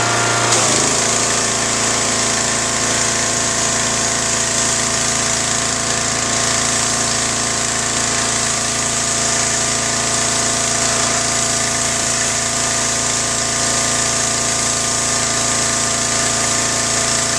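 Troy-Bilt 2700 PSI gas pressure washer running steadily, with the hiss of its high-pressure water jet spraying onto a concrete bench. About half a second in, the engine note shifts and the spray hiss starts up as the wand's trigger is squeezed and the engine takes the load.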